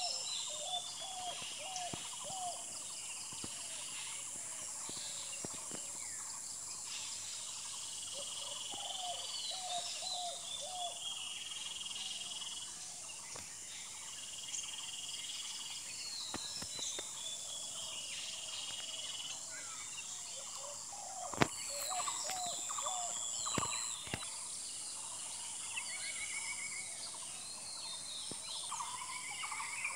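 Morning bird chorus of several birds calling at once: runs of high notes falling in pitch, short runs of lower calls, and brief held high notes, over a steady high hiss. Two sharp clicks come about two seconds apart, about two-thirds of the way through.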